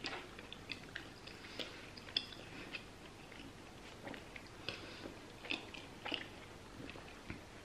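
A person chewing a mouthful of pulled pork sandwich in a soft sesame bun, mouth closed: faint, irregular mouth clicks and smacks.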